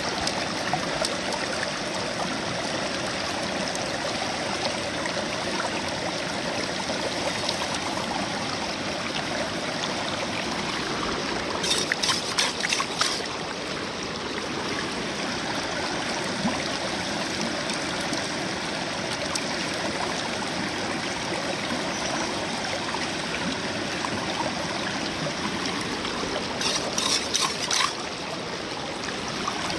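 Shallow river flowing steadily over rocks. Twice, about twelve seconds in and again near the end, wet gravel rattles and scrapes for a second or two as a metal scoop digs into a bucket of sediment.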